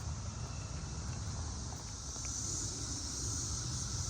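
Chorus of periodical cicadas: a steady high-pitched drone that grows louder a little past halfway, over a low rumble.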